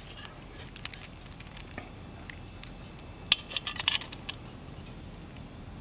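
Light metallic clinks and taps from small metal parts being handled, with a short cluster of sharper clicks a little past halfway.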